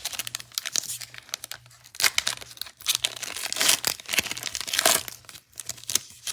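A 2021 Rookies & Stars football card pack's wrapper being torn open and crinkled, with crackling and several louder bursts of rustling.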